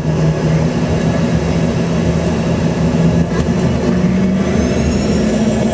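Airliner jet engines spooling up to takeoff power at the start of the takeoff roll, heard from inside the cabin: a loud, steady hum under a high whine that rises in pitch near the end.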